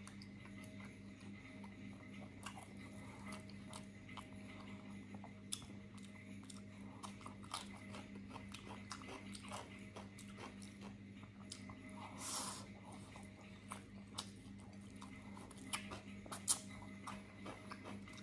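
Close-up, open-mouthed chewing and lip-smacking as a man eats braised beef and rice: a string of irregular wet clicks and smacks, a few of them sharper, over a steady low hum.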